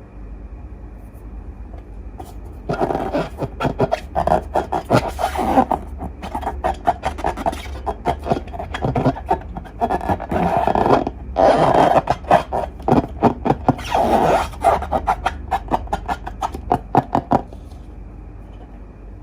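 Slime being squeezed and worked by hand, a dense run of sticky clicks and crackles that starts about three seconds in, breaks off briefly near the middle and stops shortly before the end, over a steady low hum.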